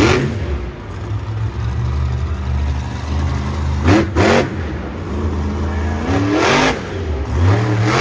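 Monster truck's supercharged V8 running under a steady low drone, revving up hard in bursts about four seconds and six and a half seconds in.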